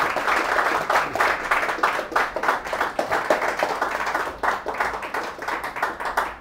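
A group of people applauding: many overlapping hand claps, growing a little quieter toward the end.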